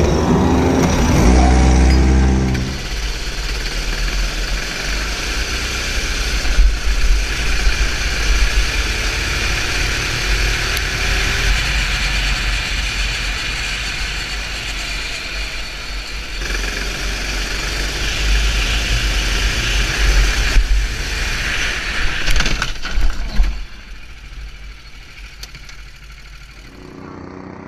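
Go-kart engine running at speed: first a kart heard from trackside, its pitch rising and falling as it passes, then a steady drone from an onboard camera, with a heavy low rumble and a few sharp knocks. It drops much quieter near the end.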